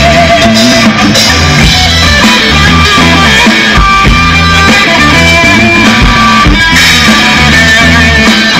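A live rock band playing loudly through a stage PA: drum kit, electric guitars and bass, with steady low bass notes under the beat.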